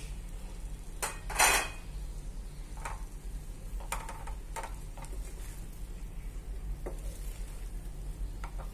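Cooked rice tipped from a bowl into a metal kadhai, with one loud scraping clatter about a second and a half in, then a wooden spatula tapping and scraping against the pan as the rice is mixed in.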